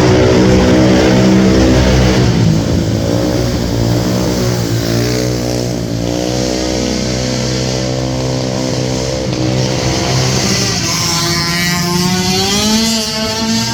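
Racing ATV engines, 450cc single-cylinder four-strokes, running hard under throttle with the pitch rising and falling as the riders get on and off the gas. Near the end a higher-pitched engine climbs and then drops.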